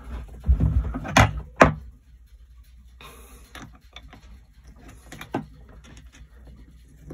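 A black rubber hose coupling is handled against a fitting on a fibreglass hull: two sharp knocks about a second in. Then come quieter scraping and small ticks as a screwdriver tightens the stainless worm-drive hose clamp, with one more knock near the end.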